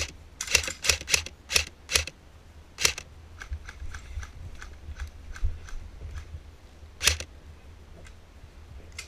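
Airsoft rifle firing single shots, each a sharp click: a quick string of about seven in the first three seconds, fainter clicks in between, and one more loud shot about seven seconds in.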